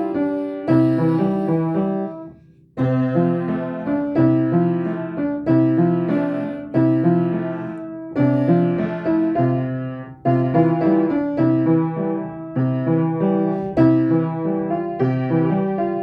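Piano playing a gentle piece in struck chords and melody notes that ring and fade, with a brief break about two and a half seconds in.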